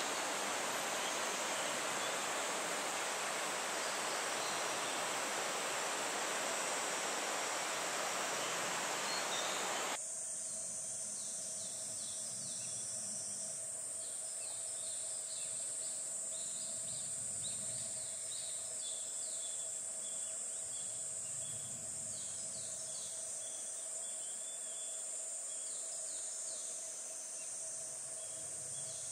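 Steady rushing water with a high insect hiss, cut off suddenly about ten seconds in. Then forest ambience: a steady high insect drone and a bird calling again and again in quick runs of short falling notes.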